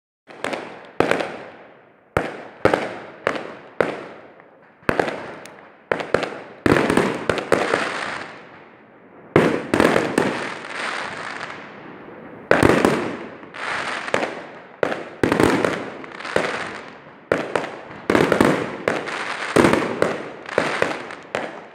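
Fireworks going off in a steady string of sharp bangs, about one a second, each fading away over a second or two, with some bursts overlapping into longer stretches.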